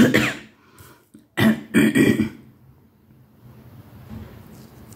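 A woman clearing her throat in a few short bursts over the first two seconds, then only faint room noise.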